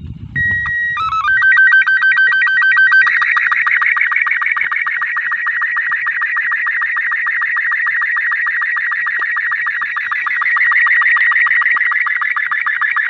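Slow-scan television (SSTV) image signal in Robot 36 mode, sounding from a handheld transceiver as the picture is received and decoded. It opens with a short sequence of steady start-up tones in a few steps, then from about three seconds in turns into the fast, evenly ticking warble of the picture lines.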